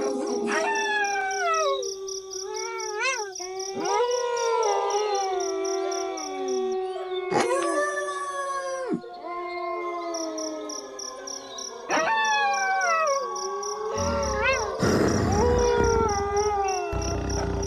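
A pack of wolves howling in chorus: several long howls overlap, each gliding up and sliding down in pitch, one starting as another fades. Near the end a low rumbling noise comes in under the howls.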